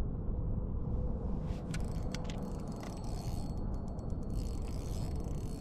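Rapid dry clicking of a fishing reel being cranked, starting about a second and a half in and coming thicker near the end, over a steady low rumble.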